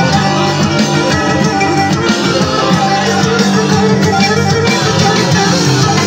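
Instrumental passage of a Turkish folk song, led by plucked string instruments playing at a steady, loud level, with no singing.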